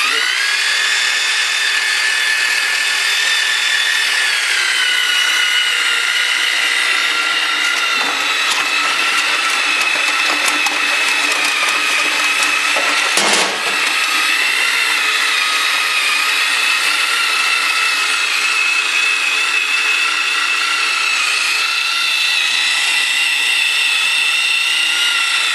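Heavy-duty half-inch electric drill running steadily, turning a wire stripper's V cutting wheel as it slits the insulation on copper wire. The whine dips slightly in pitch about four seconds in, with a single knock around the middle.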